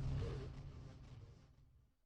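The tail of electronic music fading out, its low bass lingering longest, dying away to silence about one and a half seconds in.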